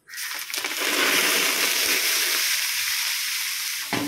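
Hot fat poured over cashews and curry leaves on a large pot of pongal, sizzling loudly and steadily as the tempering fries. Near the end a metal lid clanks onto the pot.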